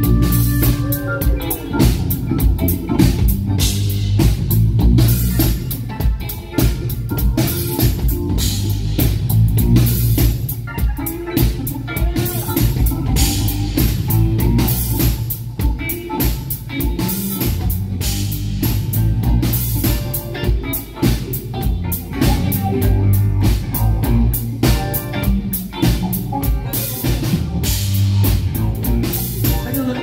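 Live rock band playing: two electric guitars and keyboard over a drum kit keeping a steady beat.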